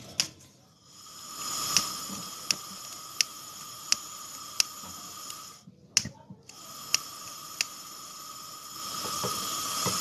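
Gas brazing torch hissing steadily as it heats the freezer compressor's copper pipe joints to unsolder them, with light ticks about every 0.7 s. The hiss breaks off for under a second around the middle, then resumes.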